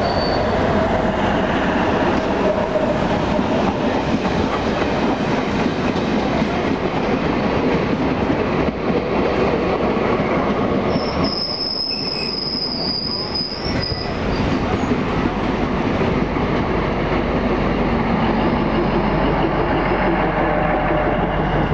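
Diesel-electric multiple unit (DEMU) local train arriving along a platform, its coaches rolling past with a steady rumble and wheel clatter. A high metallic squeal from the wheels rings out for about three seconds midway. Near the end, a lower engine hum grows as the power car passes.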